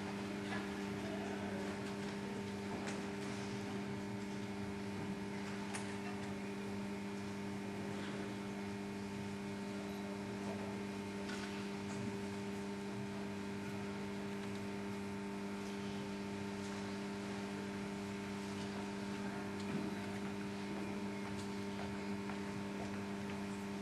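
Steady electrical hum made of several constant low tones, over faint background noise with a few small scattered clicks.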